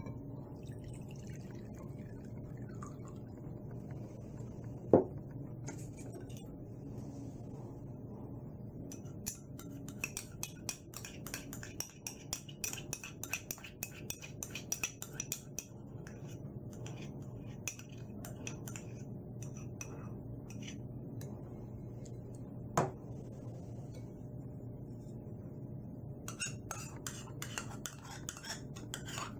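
A spoon clinking against a bowl in quick runs of small clicks as sauce ingredients are spooned in and stirred, with two sharp knocks, about five seconds in and near three-quarters through, over a steady low hum.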